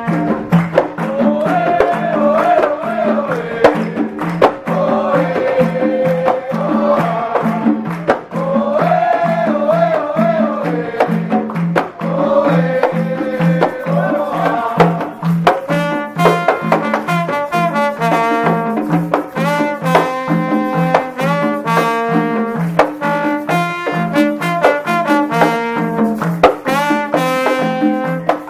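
A plena group playing: a trombone with panderos (hand frame drums) keeping a steady, even beat. Voices sing a wavering melody for roughly the first half, then the trombone takes the lead with a run of quick, clean notes.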